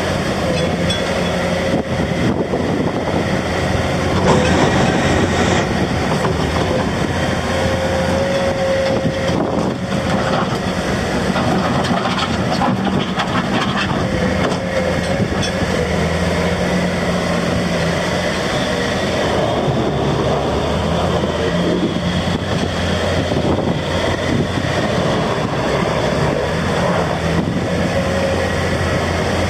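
Bobcat S650 skid steer loader's diesel engine running steadily at an even speed.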